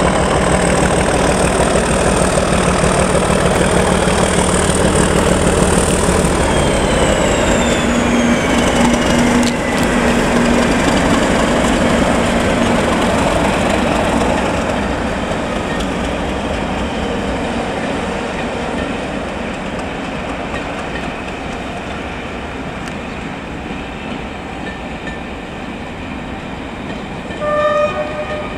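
A Class 37 diesel locomotive's English Electric V12 engine running as the locomotive passes, with a high whistle falling in pitch in the first dozen seconds. The engine gives way to the rumble and clickety-clack of the coaches' wheels on the rails, fading gradually, with a short horn-like tone near the end.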